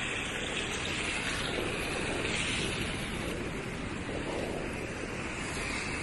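Ocean surf breaking and washing up a sandy beach in a steady rush, with wind buffeting the microphone.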